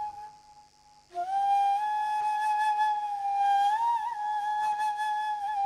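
Background score music: a solo flute playing slow, long held notes. It fades almost to nothing, then a new note comes in about a second in and is held, with a slight waver in pitch near the end.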